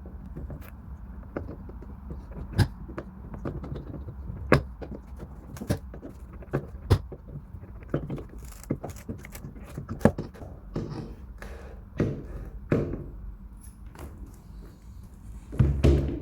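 Irregular sharp knocks and metallic clicks of tools working loose old nails out of wooden parquet boards, with a few scraping sounds in between and a louder cluster of knocks near the end.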